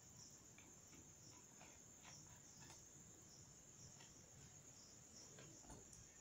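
Near silence with the faint, steady high chirring of crickets, and a few soft scattered clicks.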